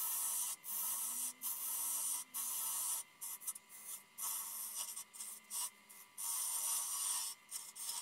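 Turning tool cutting into spinning hazel wood on a lathe: a hissing scrape in passes of about a second with short breaks as the tool lifts off. In the middle the cut comes as short scratchy touches before one more long pass near the end.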